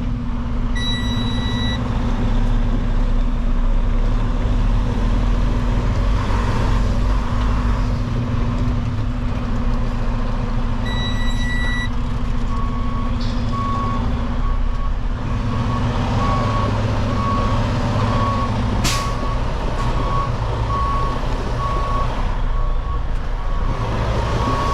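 Semi-truck diesel engine running steadily while the tanker rig reverses. A higher-pitched tone sounds for about a second twice, about a second in and again about eleven seconds in. From about halfway a backup alarm beeps roughly once a second. A short sharp air hiss comes a few seconds before the end.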